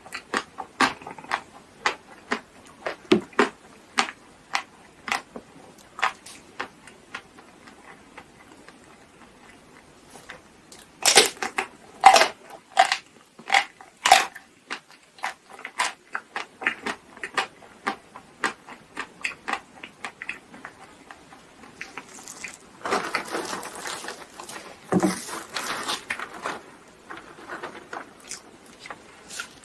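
Close-miked eating sounds: a steady run of crisp crunches and chewing, two or three a second, with a cluster of louder cracks about 11 to 14 seconds in and a noisier, rustling stretch a few seconds before the end.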